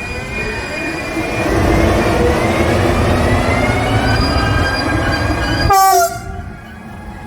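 Passenger train passing close by: the rumble and wheel noise swell loud about a second and a half in, with rising whining tones and the train horn. A short falling tone near the end comes just before the sound drops away abruptly.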